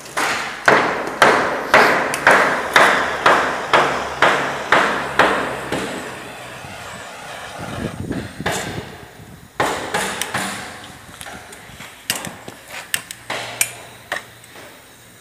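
A run of sharp knocks, about three a second, for the first five seconds or so. Then the steady hiss of a hand-held propane torch flame heating heat-shrink tubing on a power cable, with a sudden louder burst of noise at about ten seconds and a few scattered clicks later.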